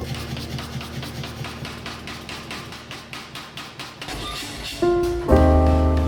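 Background music: a fast, even tapping that fades over the first four seconds, then loud sustained chords come in about five seconds in.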